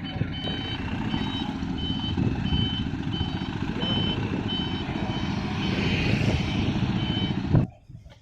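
Repeating electronic beep, just under twice a second, over a loud, steady engine rumble, like a vehicle's reversing alarm; the sound cuts off abruptly near the end.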